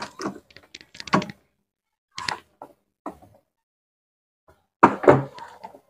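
Knocks and clatter of a screwdriver and hands on the hard plastic base of a Miyako rice cooker as it is being taken apart: a few clusters of sharp taps, the loudest group about five seconds in.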